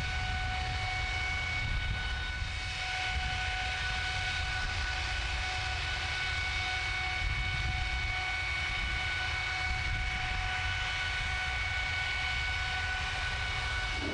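GE90-115B high-bypass turbofan running steadily at full power on a test stand: a deep, even rumble with several steady high-pitched tones over it. The engine is held at its triple-red-line test point, with fan speed, core speed and exhaust temperature all at their limits, making over 120,000 lb of thrust.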